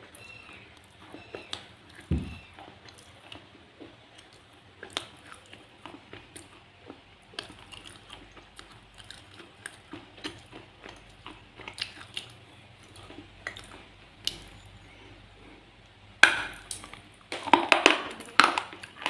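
Close-up crunching and chewing of hard slate pencil in the mouth: scattered sharp cracks and clicks, one low thud about two seconds in, then a dense run of louder crunches from about sixteen seconds in.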